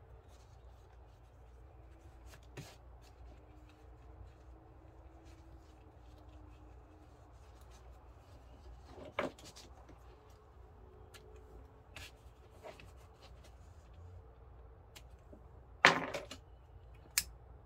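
Hands handling vinyl pieces on a worktable cutting mat: faint room tone broken by a few brief taps and knocks, the loudest a sharp knock with a short rustle near the end.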